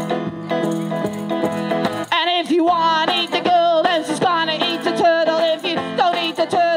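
Banjo picked with steady plucked notes; about two seconds in a voice joins, singing with quick, wavering leaps in pitch like a yodel.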